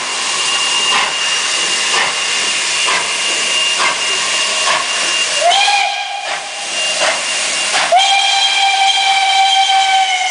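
SNCF 141R steam locomotive pulling away: steam hissing with a sharp exhaust beat about once a second, then about halfway through a long blast on the steam whistle that rises into its note, a short break, and a second long blast.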